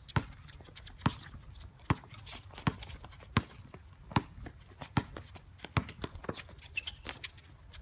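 Basketball being dribbled on an outdoor hard court: sharp bounces at a steady rhythm, a little more than one a second.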